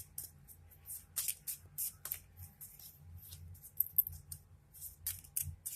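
Tarot cards being shuffled and handled: an irregular run of short, crisp card slides and flicks.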